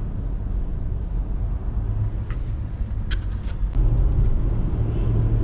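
Cabin sound of a 2006 Infiniti QX56 on the road: a steady low engine and road rumble that grows louder about four seconds in, with a few faint clicks before that.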